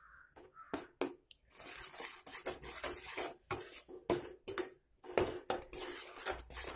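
Steel spatula scraping and knocking against a nonstick pan while gram flour is stirred into melted sugar syrup: a run of irregular clicks and scrapes.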